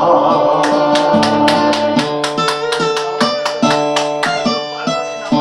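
Instrumental music: plucked guitar-like notes in a steady rhythm over sustained lower chords. The last held sung note fades out at the start.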